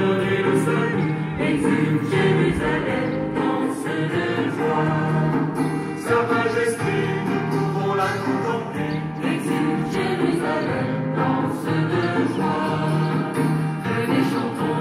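A choir singing sacred music.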